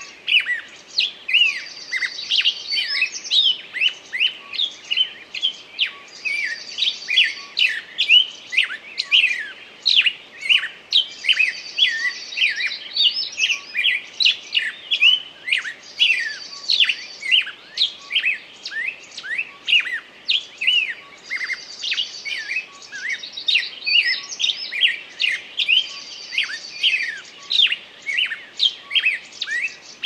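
Small songbirds chirping continuously, many quick short chirps overlapping. A buzzy trilled phrase recurs every four to five seconds.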